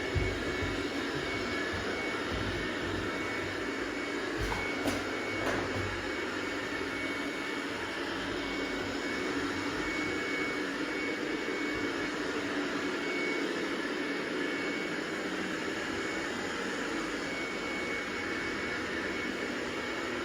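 Robot vacuum cleaner running: a steady motor whine with one constant high tone. A few low thumps and sharp clicks come in the first several seconds.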